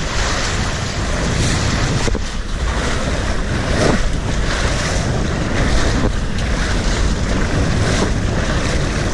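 Rushing, splashing water mixed with wind buffeting the microphone, a steady loud noise.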